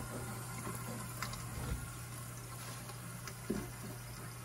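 Kitchen faucet running into a sink, a faint steady rush of water, with a low steady hum underneath and a few soft knocks.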